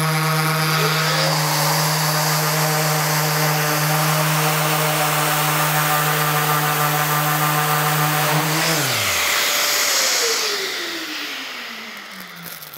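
Maxxt random orbital sander (5 mm orbit) running at full speed on rough-sawn wood: a steady motor hum with a hiss of abrasive on wood. About 9 seconds in it is switched off and its hum drops away, while a fainter, higher whine keeps going and slides down in pitch over the last few seconds.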